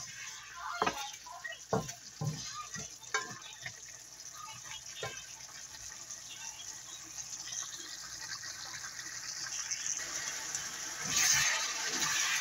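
Pork pieces sizzling and bubbling in soy-vinegar adobo sauce in a wok as the sauce boils down, with a wooden spatula knocking and scraping against the pan while stirring. The sizzle grows louder towards the end, with a surge about eleven seconds in.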